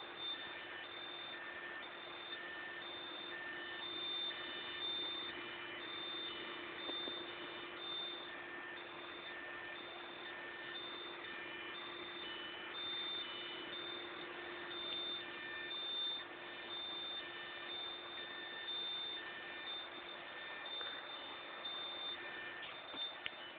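Electronic beeping: short high beeps repeating about once a second in a steady pattern at two or three pitches. A faint steady low hum runs underneath and stops shortly before the end.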